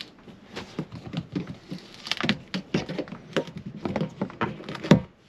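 Old caravan window trim strip being pulled by hand out of its channel in the window frame: a run of irregular clicks and creaks, the loudest near the end.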